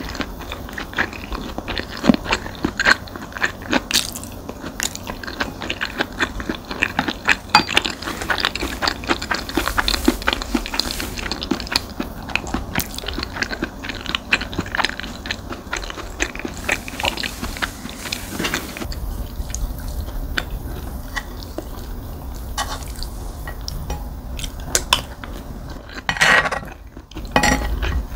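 Close-miked eating of fried rice: wet chewing and biting with many small clicks, and cutlery clinking on the dish. There is a louder burst of sound near the end.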